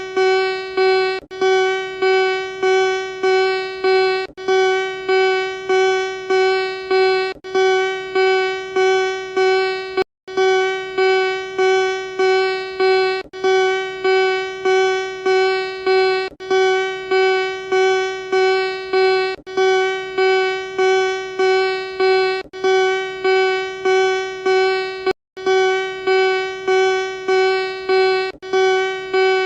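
Emergency alert attention tone: a single buzzy pitch with many overtones, pulsing about twice a second. It drops out briefly twice, about ten and twenty-five seconds in.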